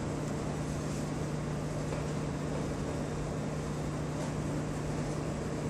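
Electric pottery wheel running with a steady low hum, while a trimming tool held against the spinning clay form scrapes and shaves it with a continuous hiss.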